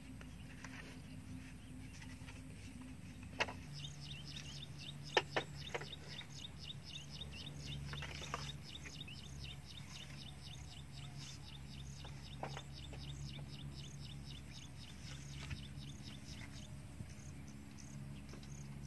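Bamboo poles knocking together a few times as they are laid across a roof frame, with a quick run of high, repeated chirping behind for much of the time over a steady low background hum.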